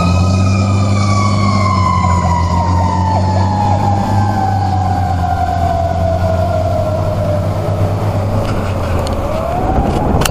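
Fire engine siren in one long wail that falls slowly in pitch, then starts rising again near the end, over the truck's low engine drone.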